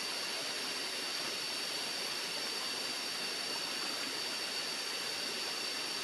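Shallow rocky stream flowing steadily over stones, with a steady high-pitched tone running over the water noise.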